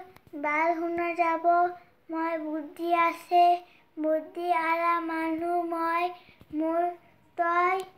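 A boy's voice singing unaccompanied in the melodic chant of a waz (Islamic sermon), in phrases of one to two seconds with long held notes and short breaths between them.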